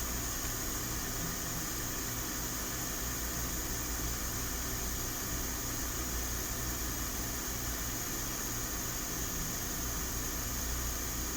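Steady rushing noise with a low hum underneath, like a small fan or blower running.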